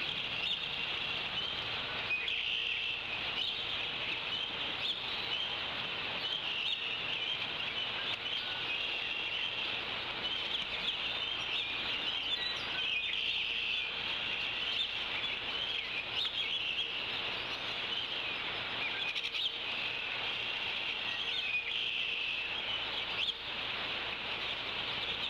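Continuous dense chorus of bird chirps and calls, many overlapping short notes and slides at an even level.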